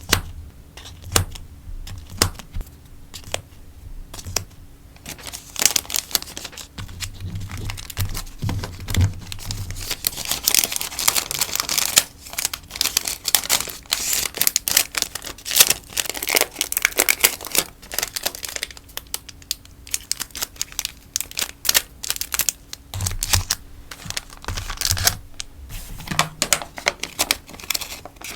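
Sticker packaging being handled: crinkling and rustling, with sharp taps and clicks at first, then a long dense stretch of crinkling, then scattered clicks and crinkles again.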